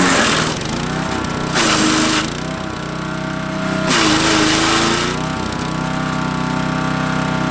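Forest Master FM8DD chipper's 8HP direct-drive engine running. Its note dips each time branches are fed through, and the blades shred them with loud grinding bursts about every two seconds, three times.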